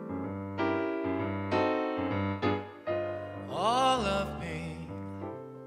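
Slow piano chords from a ballad's accompaniment, with a male voice singing a short phrase that rises and falls about three and a half seconds in.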